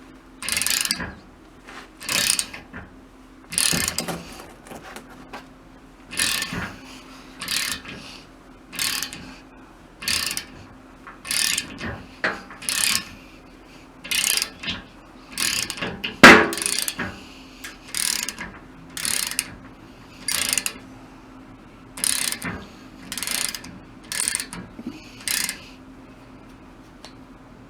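Hand ratchet wrench worked in short, repeated strokes, about twenty of them roughly a second apart, with one sharp, loud metallic click about sixteen seconds in. The strokes stop near the end.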